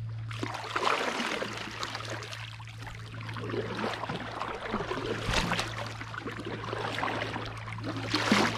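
Kayak paddle strokes: water splashing and dripping off the paddle blades as they dip on alternate sides, with louder splashes about a second in, around the middle and near the end.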